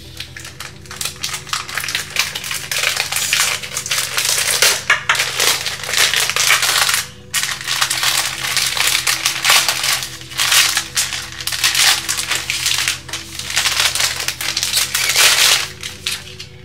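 Clear plastic wrapping bag crinkling loudly as a laptop is slid out of it, with a short break about seven seconds in, stopping shortly before the end.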